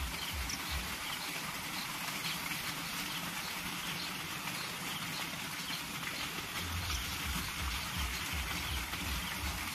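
Outdoor ambience: a steady hiss with faint, short, high chirps scattered through it, and a gusty low rumble of wind on the microphone that grows stronger about seven seconds in.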